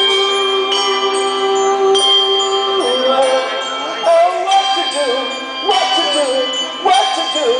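Handbells ringing a tune, many notes held and overlapping in sustained chords. From about three seconds in, voices waver along over the bells.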